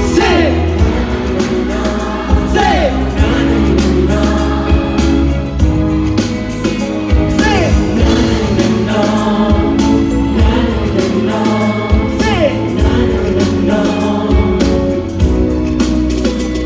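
Thai pop song with a strong bass line and sung vocals; a voice calls "Say" twice near the start.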